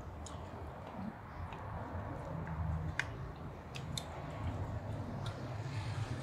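Close-up chewing of meat with wet mouth clicks and lip smacks, a few sharp clicks scattered through and the loudest about three seconds in, over a low steady rumble.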